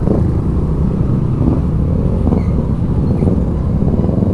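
Yamaha Aerox 155 scooter on the move, heard from a helmet-mounted camera: a steady rumble of wind buffeting the microphone with the engine running underneath.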